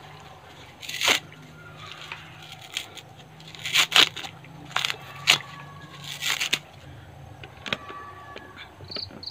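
Fibrous husk of a mature coconut being pried and torn off the nut by hand, in irregular ripping and crunching strokes.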